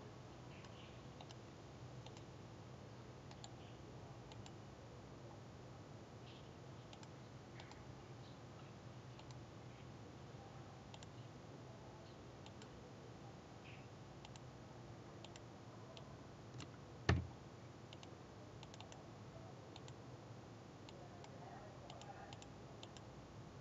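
Faint, scattered computer mouse clicks and keyboard keystrokes over a steady low hum, with one much louder sharp click about two-thirds of the way through.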